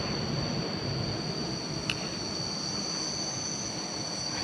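Night insects trilling in two steady high tones over an even hiss, with one faint click about two seconds in.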